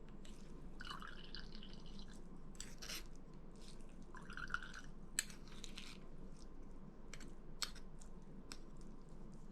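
Spoon pressing soaked elderberries in a strainer: faint wet squishing and dripping as the juice is squeezed out, with a few sharp clicks along the way.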